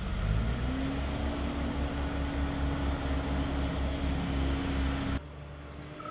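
Engine of construction machinery running with a pulsing low rumble; its pitch rises about half a second in and then holds steady. The sound cuts off abruptly near the end, leaving a quieter background.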